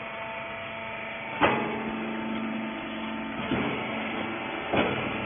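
Hydraulic rag baler's power unit running with a steady hum, with three sharp knocks, about a second and a half in, about three and a half seconds in and near the end; the first is the loudest.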